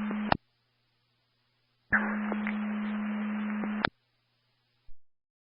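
Scanner radio squelch opening on keyed transmissions with no voice: a steady hiss with a constant hum that cuts off with a squelch-tail click just after the start, then a second open carrier of about two seconds that ends with another click.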